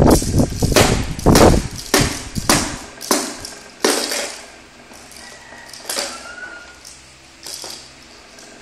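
A quick run of knocks and thumps, about two a second and loudest in the first three seconds, thinning out to a few softer knocks later on.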